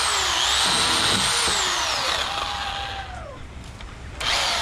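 Portland electric pole saw's motor and chain running with a high whine, the pitch dipping and recovering under load as the chain cuts into a tree limb. About two seconds in the motor winds down with a falling pitch, and it starts up again near the end.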